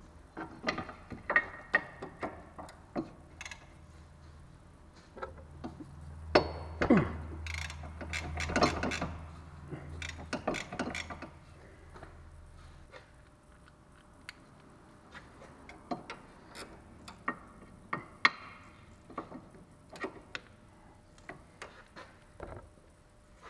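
Ratchet wrench clicking in short, irregular strokes as it works the 14 mm lower nut of a front stabilizer bar end link. A louder stretch of metal clatter over a low hum comes about six to eleven seconds in.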